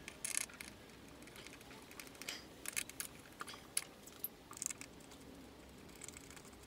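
Faint, irregular light clicks and taps of a metal mounting bracket and its bolts being handled and fitted into place by hand.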